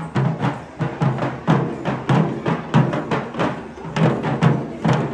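Festival drums beaten in a steady driving rhythm, about three strokes a second.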